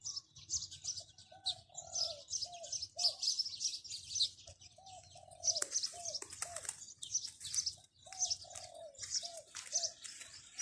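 Zebra dove cooing in three runs of short, slightly falling notes, over constant high-pitched chirping from small birds.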